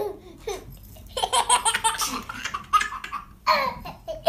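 A baby laughing in several short bursts with quieter gaps between.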